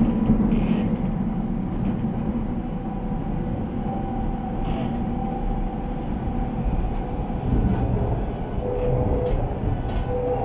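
Shanghai Metro Line 2 train running between stations, heard from inside the carriage: a steady rumble of wheels on track, with a faint steady tone that grows stronger about four seconds in.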